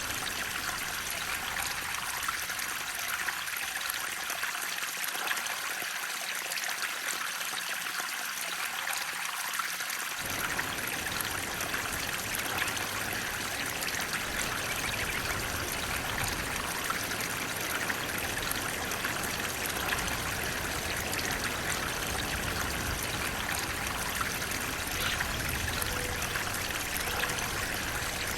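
Water flowing and trickling in a steady, even rush, most of it high and hissy. About ten seconds in a deeper low rumble suddenly joins the flow.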